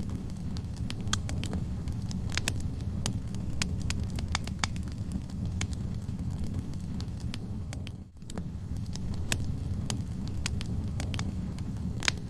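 Wood fire in a fireplace crackling: irregular sharp pops and snaps from the burning logs over a steady low rumble of the flames. The sound dips out for a moment about eight seconds in.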